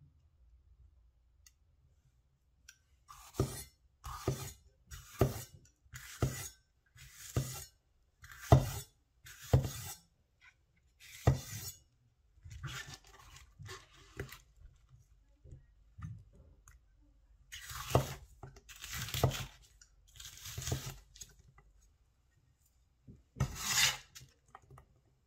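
Chinese vegetable cleaver cutting bell pepper on a wooden cutting board: eight separate cuts about a second apart, each blade knocking on the board. Softer handling follows, then three more cuts, and near the end the blade scrapes along the board as the diced pepper is scooped up.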